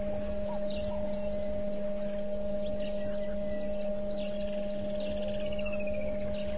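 A steady hum of two constant tones over a low rumble. About four seconds in, a bird calls once with a quick series of notes falling in pitch, and a few faint chirps sound higher up.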